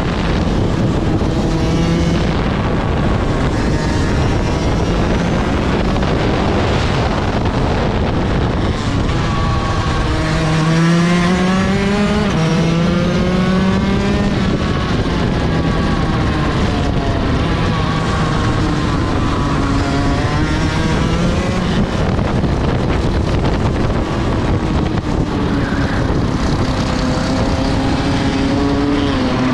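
Rotax 125 DD2 EVO two-stroke kart engine running hard from the driver's seat over a steady rushing noise. Its pitch climbs and drops several times as the kart accelerates down straights and eases off for corners.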